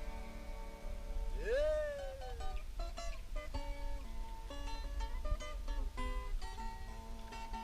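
Background music: a plucked acoustic guitar melody, with one note swooping up and falling back about a second and a half in, over a steady low rumble.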